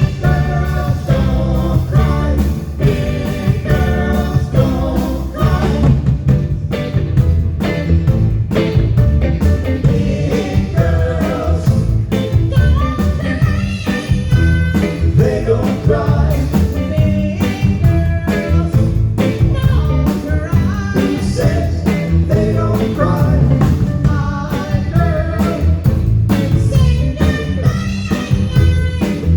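Music with a singing voice over a steady, strong bass and drum beat.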